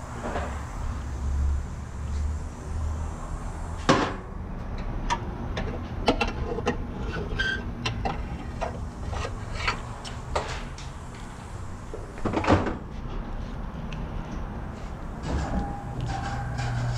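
Clatter of shop equipment being moved and handled: scattered clicks and knocks from a smoke machine, its hoses and battery clips, with two louder knocks, one about four seconds in and one about twelve seconds in. A low hum runs under the first few seconds, and another steady hum starts near the end.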